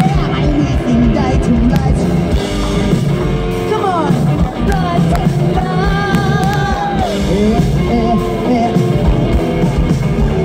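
Live rock band playing loud through a stage PA: a vocalist singing over drums and electric guitar, holding one long wavering note about six seconds in.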